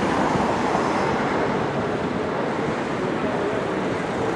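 Road traffic: a coach pulling out with cars passing close by, a steady mix of engine and road noise.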